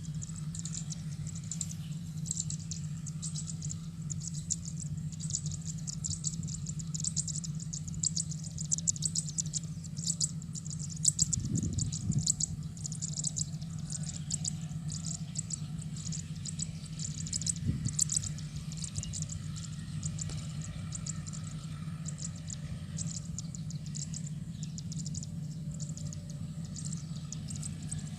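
Insects and birds chirping steadily over the low, even hum of a combine harvester's engine working at a distance, with two brief low bumps near the middle.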